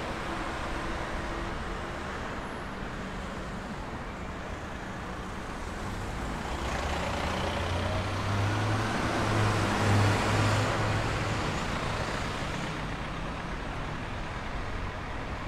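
Street traffic, with a motor vehicle passing close by. Its engine hum and tyre noise swell about halfway through and fade again.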